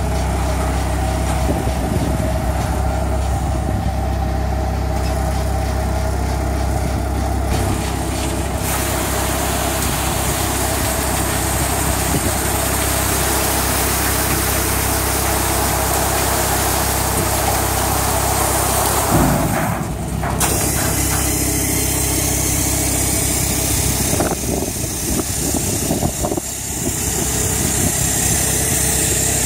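Volentieri Pellenc 8050 olive harvester running steadily, with engine hum and machinery rattle. From about eight seconds in, a louder rushing hiss joins it for roughly ten seconds as harvested olives pour off the discharge conveyor into a trailer.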